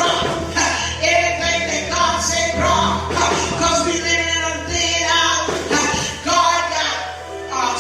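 Gospel music: voices singing over instrumental accompaniment with a steady bass.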